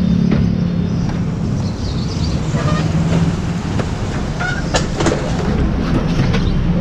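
Motorcycle engine idling with a steady low hum, a little louder in the first couple of seconds, with a few short clicks and brief higher tones over it.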